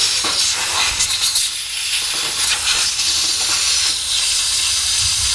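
Compressed-air blow gun blasting through a small pipe fitting: a loud, steady rushing hiss that flutters slightly as the nozzle moves, clearing leftover Teflon tape out of the fitting.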